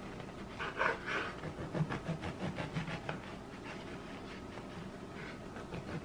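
A bread knife sawing back and forth through a crusty round loaf: repeated rasping strokes with the crust crackling, loudest about a second in.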